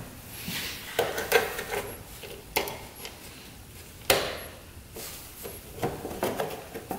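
Plastic access cover over the radiator cap of a Polaris Big Boss 6x6 ATV being worked loose and lifted out by hand: a series of sharp clicks and knocks with scraping between them. The sharpest come about a second in, two and a half seconds in, and four seconds in.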